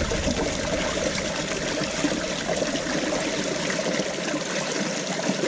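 Water of a small stone-lined ditch trickling steadily over rocks.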